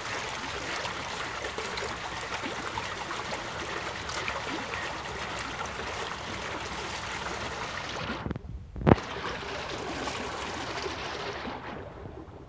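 Water sloshing and trickling as a dip net is swept and scooped through shallow pond water among reeds. A brief break comes a little after eight seconds, followed by a single sharp knock. Then the sloshing resumes and thins out near the end.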